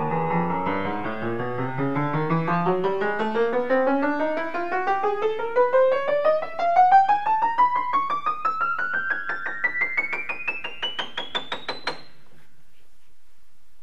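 Cable-Nelson upright piano played as a steady run of single notes climbing up the keyboard, about four or five a second, into the highest treble notes; the run stops about twelve seconds in and the last notes die away.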